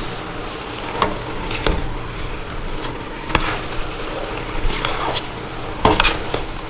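A utensil stirring pancit noodles and pork belly in a cooking pan, knocking against the pan a handful of times over a steady hiss.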